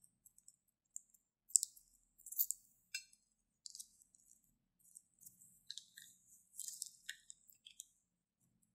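Thin plastic piping bag crinkling and crackling in the hands as it is squeezed to push clear slime out of its snipped tip, in irregular bursts, loudest in the first few seconds and again about two-thirds of the way through.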